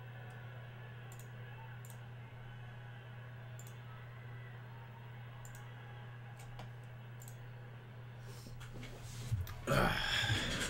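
Scattered faint clicks over a steady low electrical hum, then a louder burst of rustling handling noise near the end.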